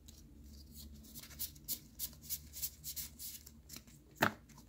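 Magic: The Gathering trading cards sliding past one another as a freshly opened booster pack is flipped through by hand: a quick run of faint, soft swishes at about three a second, then a sharper tap near the end.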